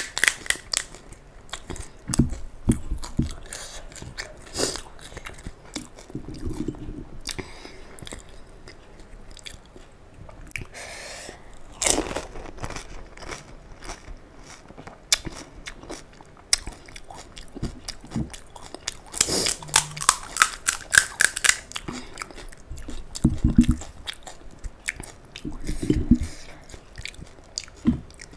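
Close-miked eating of panipuri: crisp, hollow puri shells crunching and crackling as they are bitten and chewed, mixed with wet chewing. A run of rapid crackles comes at the start and again a little past the middle.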